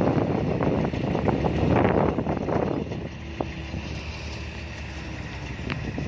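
Wind buffeting the microphone, heavy and gusty for the first half and easing after that. Under it there is a faint steady hum of distant diesel earthmoving machinery.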